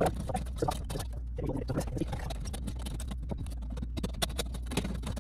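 Small metal file on a Swiss Army knife scraping inside the cut end of a copper pipe, a quick, irregular run of short rasping scrapes and clicks as the burr is filed off the pipe's inner edge.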